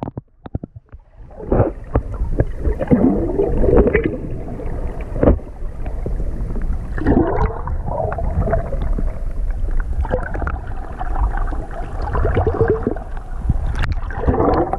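Sea water sloshing and bubbling around a GoPro held under the surface in the swell. It sounds muffled and dull, with scattered knocks. About fourteen seconds in, the sound turns brighter as the camera comes out of the water.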